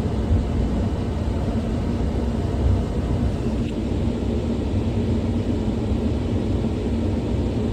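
Komatsu 210 excavator's diesel engine running steadily as the machine is worked, a low even rumble with a faint steady hum.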